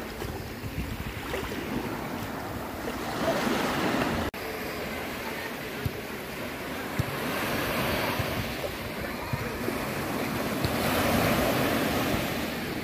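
Small waves breaking and washing in over shallow water at the beach, a steady rush of surf that swells louder every few seconds as each wave comes in.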